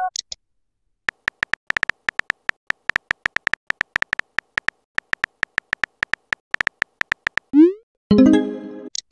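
Simulated phone-keyboard typing clicks from a texting-story app, a quick run of soft taps lasting about six seconds. Near the end comes a short rising swoop as the message is sent, then a synthesized chiming notification tone that fades away.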